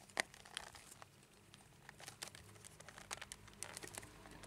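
Cellophane wrap on a clear plastic cube box crinkling faintly as fingers pick at it to open it, in scattered small crackles and clicks.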